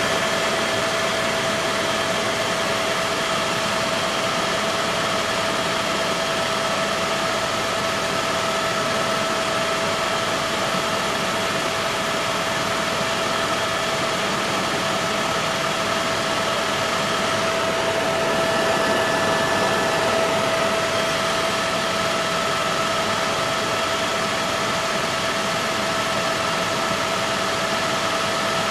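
Helicopter cabin noise during flight: the steady rush of the engine and rotor with a steady whine over it.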